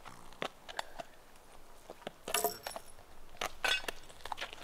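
Metal chain clinking and rattling in a series of sharp strikes as a horse logger hooks the skidding chain around a log. The two loudest clanks, about two and a half seconds in and near the end, ring briefly.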